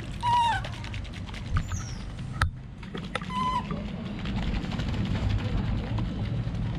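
Baby monkey giving two short squeaky calls, each falling in pitch, one at the start and one about three seconds in, over a steady low hum.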